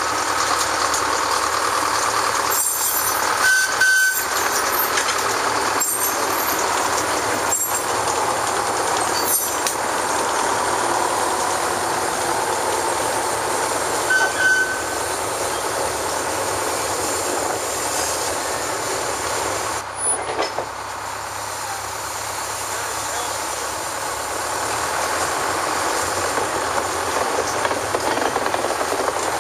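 Small Plymouth narrow-gauge industrial locomotive running steadily as it moves along the track. Brief high squeaks sound twice, about four seconds in and again near fourteen seconds.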